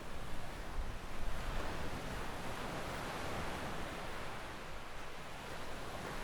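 Small ocean waves washing onto a sandy beach: a steady hiss of surf, swelling a little about a second in.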